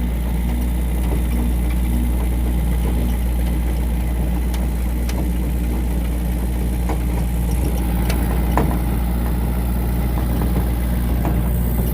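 A motor running steadily with a low, even hum, a few faint clicks over it; it starts and stops abruptly.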